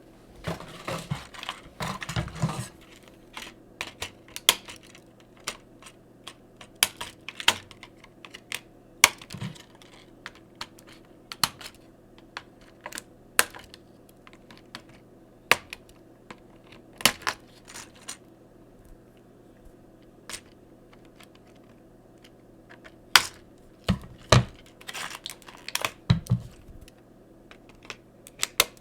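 Irregular sharp clicks and taps of small hard-plastic toy figures and their packaging being handled, with a few duller knocks near the end.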